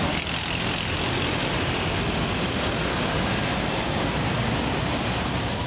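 Steady street traffic noise: a continuous rush of passing vehicles with a low engine rumble underneath.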